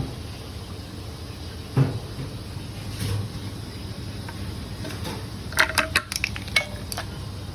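Metal parts of a Eureka coffee grinder being handled during cleaning: a dull knock about two seconds in, then a quick run of light metallic clicks and clinks near the end.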